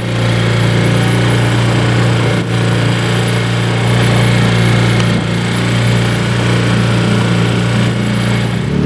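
Small outboard motor on a boat running steadily at constant throttle, a loud, even engine drone that holds one pitch throughout.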